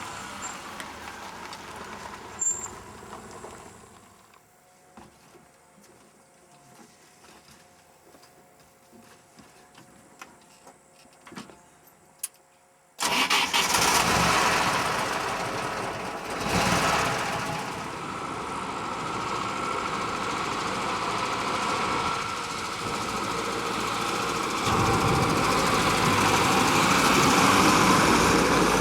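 Vehicle engine and road noise: a quieter stretch with faint steady tones and small clicks, then loud noise cuts in suddenly about halfway through and keeps going.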